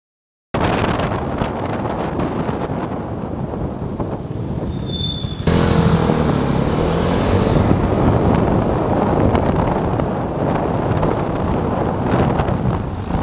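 Vespa GTS 250 i.e.'s single-cylinder four-stroke engine and wind rush while riding, heard from a scooter-mounted camera. Slowing at first, with a brief high squeak about five seconds in. Then the engine gets suddenly louder and rises in pitch as the scooter accelerates hard from near walking pace.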